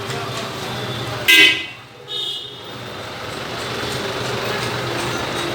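Street traffic, with a vehicle engine running steadily and a short, loud horn toot about a second in, followed by a second brief higher toot.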